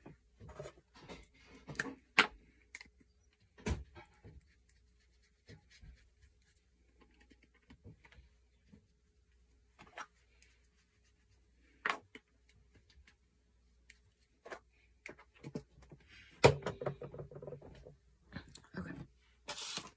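Scattered sharp knocks and clicks of someone moving about and handling things in a small room, with quiet gaps between, and a short stretch of muffled voice near the end.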